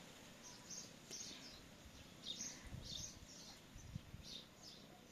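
Small songbirds chirping faintly in short high notes, a few each second, over a low background hum.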